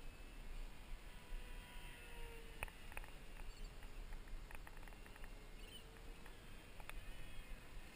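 Distant 1250 kV electric motor and propeller of a Durafly T-28 Trojan RC plane flying flat out: a faint whine that rises in pitch as the plane approaches and drops as it moves away, twice over. A few short sharp ticks stand out briefly, about three seconds in and again about seven seconds in.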